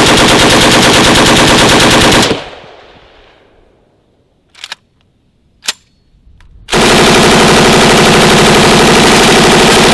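An AK-pattern rifle firing a long full-auto burst that stops about two seconds in. Two single sharp cracks follow. Then an M249 SAW belt-fed machine gun fires a long, continuous full-auto burst from about seven seconds in.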